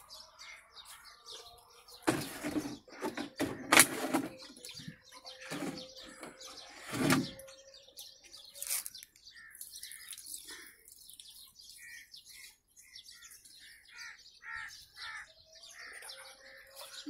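Small birds chirping, with a run of short, evenly spaced chirps in the second half. In the first half, water poured from a plastic jerry can splashes onto the grave's tiles in a few loud rushes.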